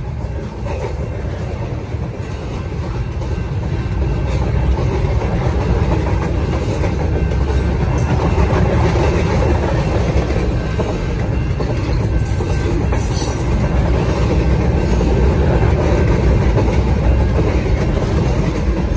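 Doublestack container train's well cars rolling past: a steady rumble and clatter of steel wheels on the rails, growing louder over the first few seconds and then holding.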